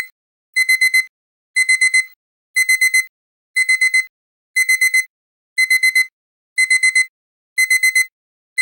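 Digital alarm clock beeping in quick bursts of four high beeps, repeating about once a second: the finishing alarm of a countdown timer that has reached zero.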